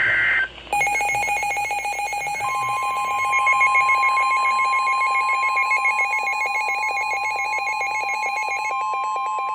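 Emergency Alert System alert tones. The tail of a digital data burst gives way to a rapidly pulsing electronic alert beep. About two and a half seconds in, a steady single tone joins it, the 1050 Hz warning alarm tone used by NOAA Weather Radio.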